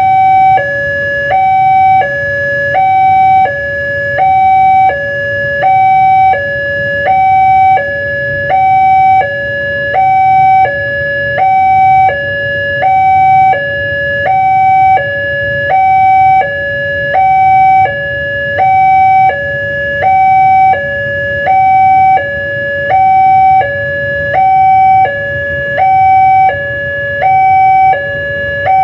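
A loud two-tone siren, its steady high and low notes alternating evenly, about three-quarters of a second each, with a low rumble underneath.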